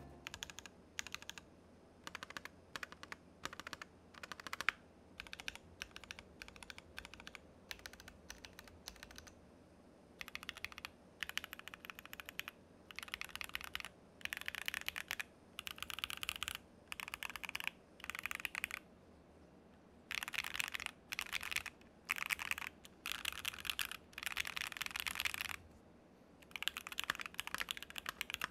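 Typing on a Keychron Q2 mechanical keyboard with factory-lubed Akko Jelly Black linear switches in a steel plate: clacky keystrokes. For the first ten seconds or so they are separate, spaced presses, then fast runs of typing with short pauses between them.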